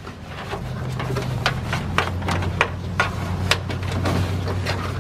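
Backup-camera wire harness and trunk carpet lining being handled as the cable is fed through: irregular light clicks and rustles, over a steady low hum.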